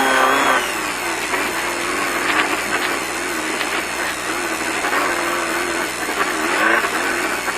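Off-road race car's engine running at moderate, slightly wavering revs, heard from inside the car, with the noise of the car working over rough, rocky desert ground.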